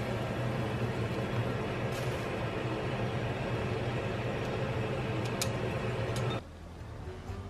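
Water boiling hard in an enamel saucepan on a gas burner, blanching rice cakes: a steady rumbling bubble with a few light clicks. It cuts off suddenly near the end.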